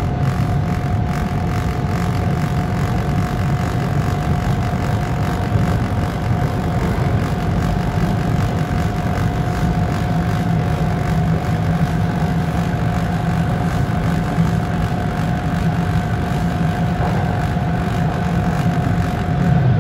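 Bombardier T1 subway train running through a tunnel, heard from inside the train: a steady rumble of wheels on rail with a thin, steady whine above it.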